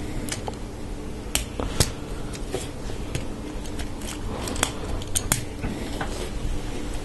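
LEGO Technic plastic parts clicking as pins, lift arms and axle joiners are pushed together and handled: a scatter of irregular small, sharp clicks.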